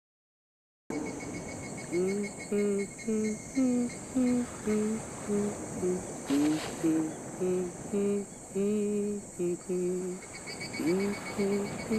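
A person humming a slow tune, one held note after another, over steady cricket chirping and hiss; it all starts suddenly about a second in after silence.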